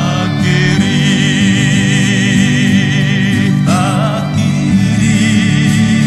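Background music: a slow song whose melody is sung in long, wavering held notes over steady chords.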